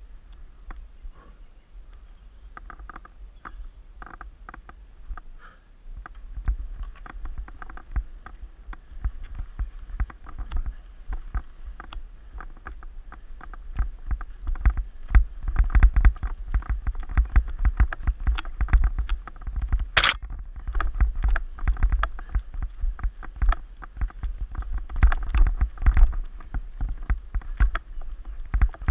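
Mountain bike rattling over a rocky, rooty forest trail, heard through a handlebar-mounted GoPro Hero 3: a dense run of knocks and clatters over a low rumble. It gets busier and louder about halfway through, with one sharp crack about two-thirds of the way in.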